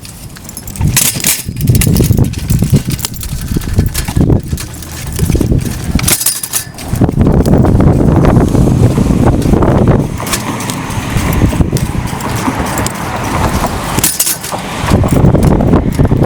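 Heavy, uneven rumble of wind and handling on the microphone as the person filming moves along, with scattered clicks and rattles; it grows louder about halfway through and again near the end.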